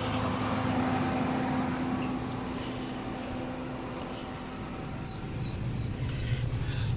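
Outdoor background noise: a steady low hum with a pitched tone over the first few seconds, then a few short bird chirps between about four and five seconds in.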